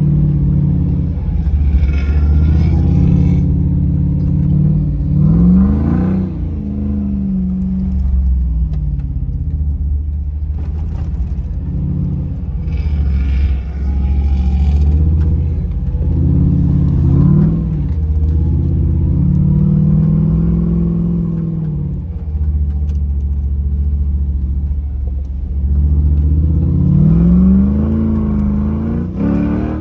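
Off-road vehicle's engine running under load and revving up and down repeatedly while driving, its pitch climbing steeply several times.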